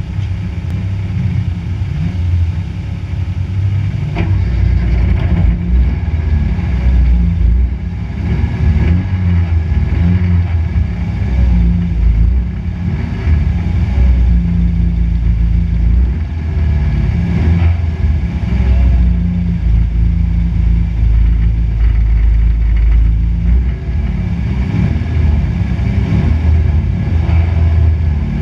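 The engine of a stripped, roll-caged race car running while the car sits still, heard from inside the cabin. It is a loud, low rumble that rises and falls slightly in pitch.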